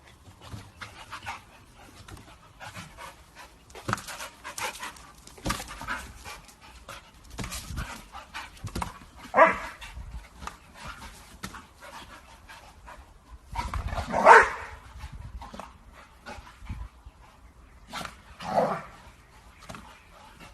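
A dog barking now and then, with three louder barks spread through the stretch and softer dog noises and small knocks between them.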